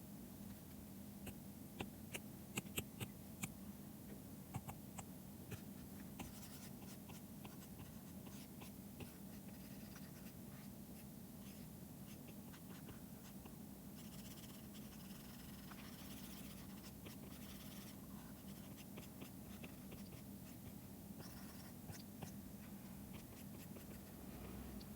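Faint stylus pen tapping and scratching on a drawing tablet, with a run of sharper taps in the first few seconds and longer scratchy strokes later on. A steady low hum runs underneath.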